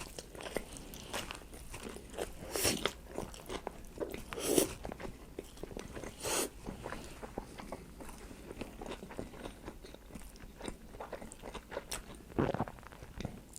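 A person chewing and biting food close to the microphone: wet mouth clicks, with a few louder crunchy bites spread through.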